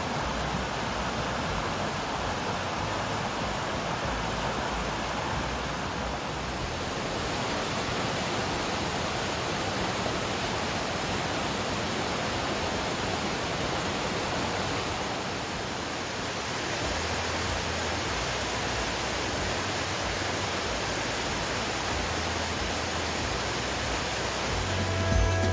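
Amadaki waterfall's steady, even rush of falling water.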